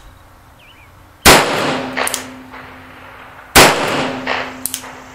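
Two shots from a Nagant M1895 revolver firing original Russian 7.62x38R service ammunition, about two and a half seconds apart, each echoing and followed by a low steady ringing tone.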